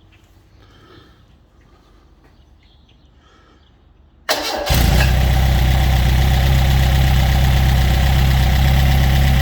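Freshly rebuilt Ford 1.7 L V4 engine starting for the first time after its rebuild. About four seconds in, it turns over briefly, catches almost at once and runs steadily and loudly.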